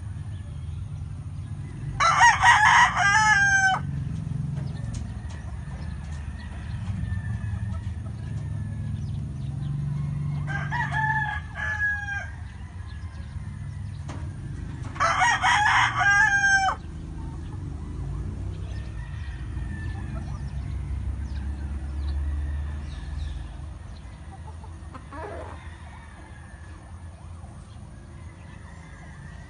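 Rooster crowing three times, each crow lasting about one and a half seconds and the second one weaker, over a steady low rumble.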